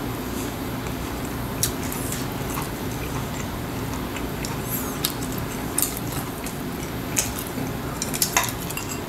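Chopsticks clicking against tableware and a cabbage leaf being handled as a cabbage wrap is folded: a handful of scattered sharp clicks, two in quick succession near the end, over a steady low background hum.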